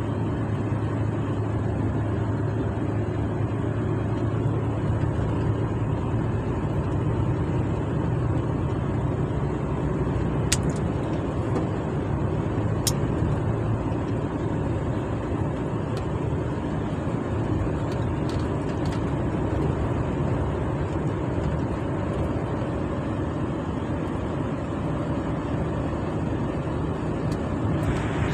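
Truck engine drone and road noise heard inside the cab while driving along at a steady speed, with two brief clicks about ten and thirteen seconds in.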